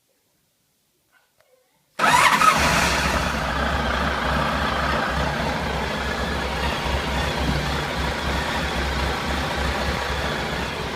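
Silence, then about two seconds in an engine suddenly comes on loud and keeps running steadily with a deep rumble.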